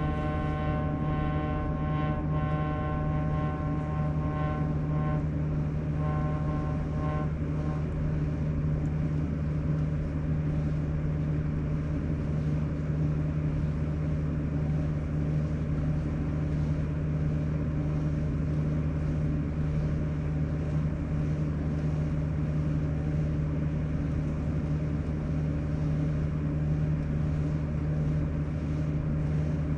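Sharp AY-J40S-W air conditioner running with a steady low hum. A set of higher whining tones rides over it, breaks off about five seconds in, comes back briefly and stops about seven seconds in. This is the abnormal noise that repairs of its frequency fault have not cured.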